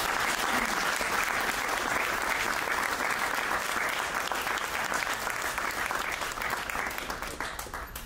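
Audience applauding: a dense patter of many hands clapping that thins out and fades near the end.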